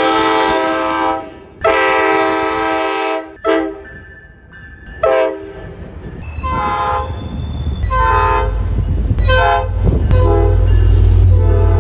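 Tri-Rail commuter train's multi-tone air horn sounding two long blasts, a short one and a fourth blast, then a run of shorter blasts as the low rumble of the approaching train builds and grows loud.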